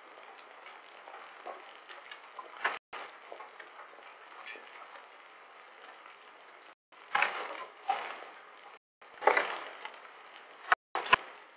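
Hail and rain pattering steadily, with about six sharper knocks, mostly in the second half, as stones strike close by, heard through a security camera's microphone. The sound cuts out for a split second a few times.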